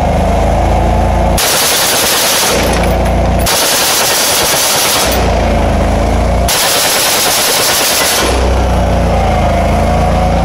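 Belt-fed machine gun firing three bursts of automatic fire, each one to two seconds long. Between the bursts the Argo 8x8 amphibious ATV's engine runs steadily.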